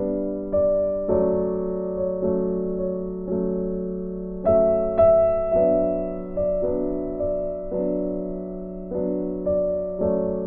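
Background music: a slow, soft piano piece, with notes and chords struck about twice a second and each ringing out and fading over a steady low note. A brighter, louder note comes in about halfway through.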